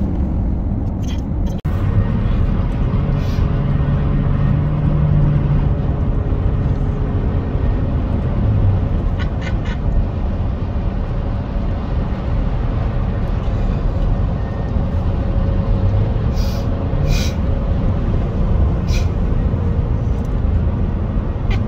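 Steady rumble of tyres and engine from inside a car travelling at highway speed, with a deeper hum rising and falling now and then. The sound cuts out for an instant under two seconds in.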